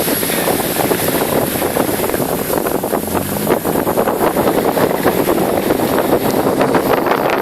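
Loud, steady rushing noise with wind buffeting the microphone and constant small crackles.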